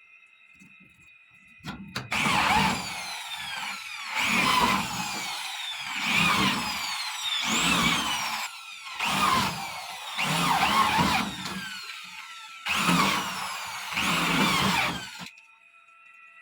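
A small electric motor, drill-like, running in about eight repeated surges with squealing glides in pitch. It starts about two seconds in and cuts off suddenly near the end.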